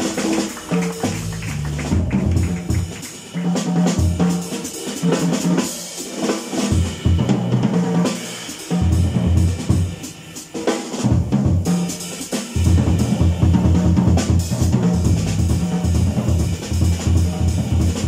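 Jazz quartet of saxophone, guitar, bass and drum kit playing live, with the drum kit prominent (bass drum, snare and rimshots) and a bass line that steps from note to note, dropping out briefly a few times.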